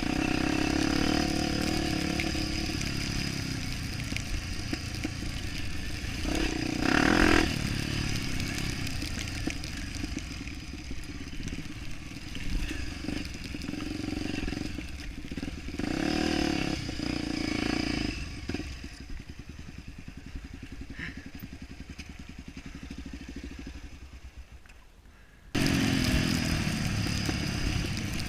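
Trail motorbike engine running, with two louder rev-ups; it dies away to a low level later on, then a loud engine sound cuts in suddenly near the end.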